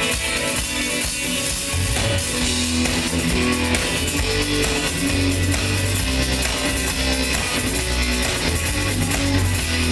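Live rock band playing the instrumental intro of a song: electric guitar over bass and drums, with the bass notes coming in strongly about two seconds in.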